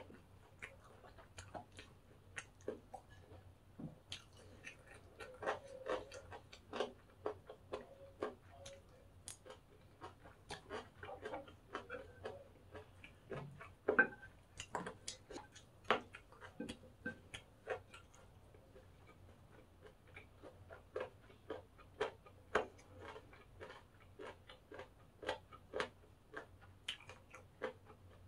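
Eating sounds of crunchy pork-cartilage fried rice: an irregular run of crisp clicking crunches as it is chewed, with a spoon clinking and scraping on a ceramic plate while rice is scooped up.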